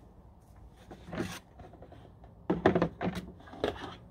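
Black plastic stackable strawberry pots knocking and scraping against each other as they are handled and stacked, with a few separate knocks and the loudest cluster a little past halfway.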